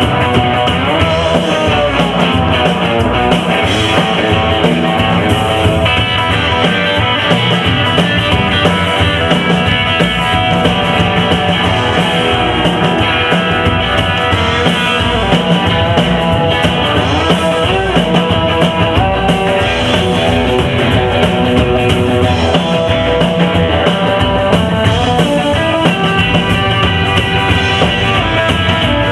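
Live rockabilly band playing a guitar-led instrumental passage with a steady beat.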